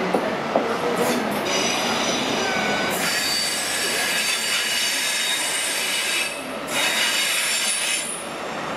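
Mark 3 coaches of a Great Western Railway HST rolling past, steel wheels squealing on the rails in several high steady tones from about a second and a half in until about six and a half seconds, over a steady rumble of wheels on track.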